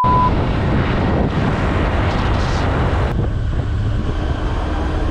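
Wind rushing over the microphone on a moving vehicle, with the vehicle's engine running underneath as a steady low rumble.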